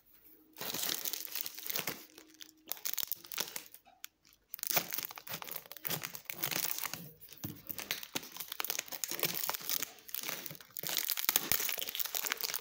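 Wrapper of a cardboard biscuit tube crinkling and tearing as it is worked open by hand, an irregular crackling with a short pause about four seconds in.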